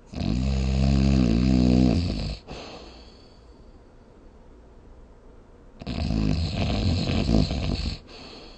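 A sleeper snoring loudly: two long snores, each about two seconds, some three and a half seconds apart. The first has a wavering, buzzing pitch; the second is raspier.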